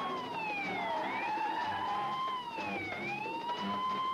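A wailing siren, its pitch sweeping slowly down and back up about every two seconds.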